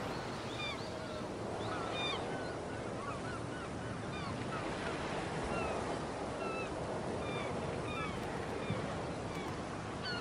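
Ocean waves washing on a shore as a steady hiss, with many short bird chirps scattered over it.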